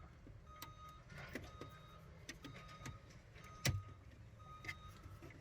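Light plastic clicks and scraping as a PLC module's gray bus slider is pushed sideways to connect it to the module beside it, with one sharper click about two-thirds of the way through.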